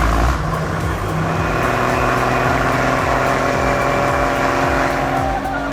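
Mercedes 911 log truck's engine running steadily under load, with a constant low rumble and a slight rise in pitch near the end.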